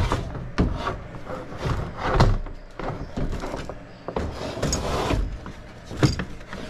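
Evaporator coil being shifted and slid in a Goodman air handler's sheet-metal cabinet: scraping with a series of clunks and knocks, the loudest about six seconds in.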